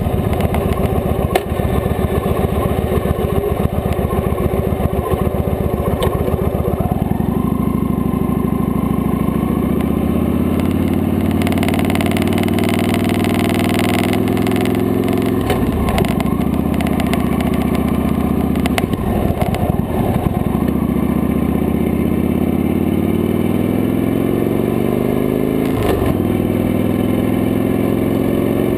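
Victory High-Ball motorcycle's V-twin engine running, heard from the handlebars: a loping pulse at low revs through a curve, then accelerating with rising pitch. The pitch drops briefly three times in the second half as the bike shifts up through the gears.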